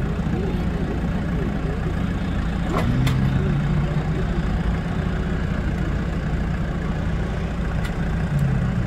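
Off-road vehicle's engine running steadily at low revs, with a couple of sharp clicks about three seconds in.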